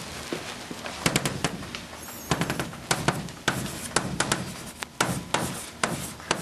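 Chalk writing on a blackboard: a quick, irregular run of sharp taps and short scrapes as each stroke is made.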